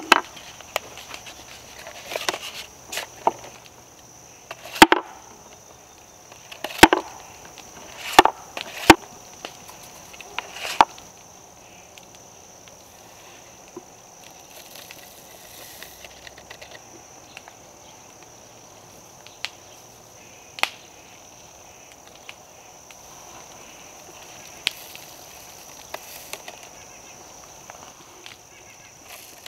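Sharp wooden knocks and taps on a wooden tabletop while paper musket cartridges are rolled and filled, a dozen or so in the first eleven seconds and a few scattered later. A steady high insect drone runs underneath.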